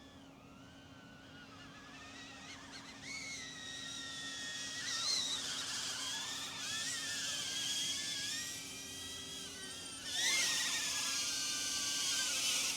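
DJI Avata FPV drone's propellers whining, its pitch rising and falling with throttle, growing steadily louder as it flies closer, with a sudden jump in loudness about ten seconds in.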